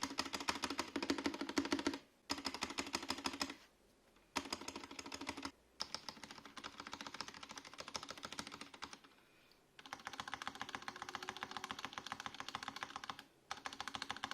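Stabilized keys (spacebar, shift, enter and the like) of a stock, unlubed Vortex Tab 75 mechanical keyboard being pressed rapidly over and over in several bursts of fast clacking, with short pauses between them.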